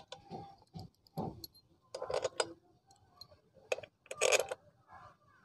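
Steel engine-cover bolts clicking and clinking as they are handled and set into the bolt holes of a Honda CD70 engine's crankcase cover. Scattered light ticks, with two louder metallic clatters about two seconds in and a little after four seconds.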